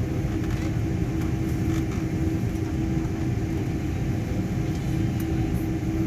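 Steady low rumble and hum of an airliner cabin on the ground, with one constant tone running through it.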